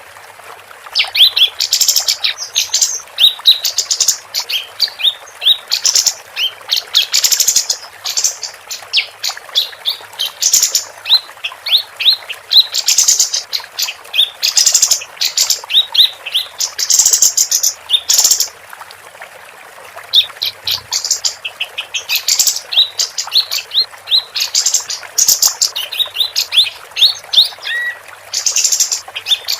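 Female kapas tembak songbird singing in rapid bursts of quick, high chirps and trills, pausing briefly about two-thirds of the way through, over a steady hiss.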